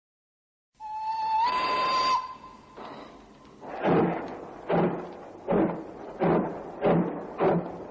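A song starting after a short silence: a held note that slides slightly up in pitch, then acoustic guitar chords struck on a slow, even beat, about one every three-quarters of a second.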